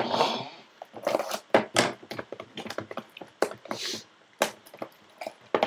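Trading-card box and wrapper being torn open and handled: a run of sharp, irregular crackles and clicks.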